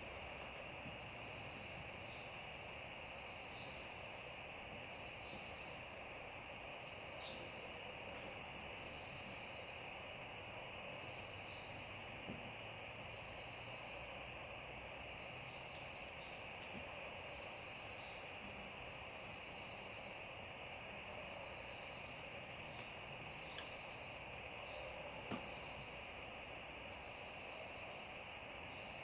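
Night insects, crickets, chirring in a steady, unbroken high trill, with another insect chirping at an even beat about once a second over it.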